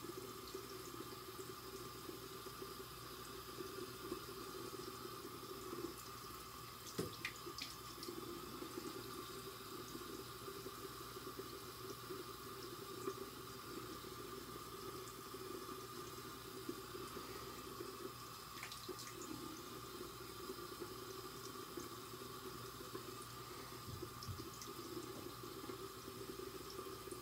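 A water tap running steadily into a sink, with a few faint clicks on top.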